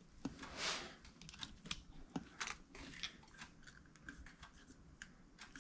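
Faint, scattered clicks and light taps of a motorcycle's twin carburettor bank being handled and turned over on a shop towel, metal parts and a screwdriver knocking lightly, with a couple of soft rustles.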